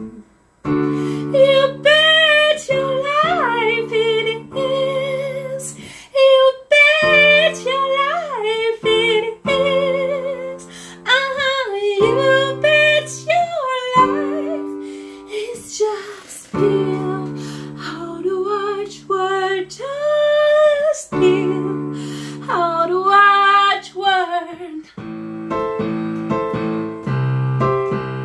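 A woman singing with vibrato, accompanying herself on a keyboard in sustained chords. The singing stops a few seconds before the end and the keyboard plays on alone.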